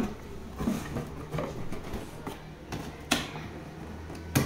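Hands moving a hard plastic carrying case among cardboard boxes in a packing carton: a few sharp clicks and knocks, the loudest about three seconds in and at the very end, over a low steady hum.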